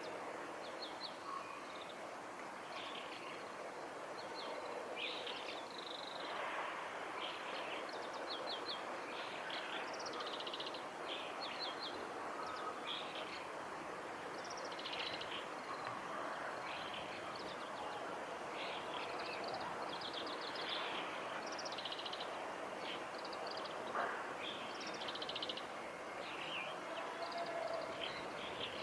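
Oriental greenfinch singing: repeated twittering phrases of high chirps and short trills over steady background noise, with a single sharp click near the end.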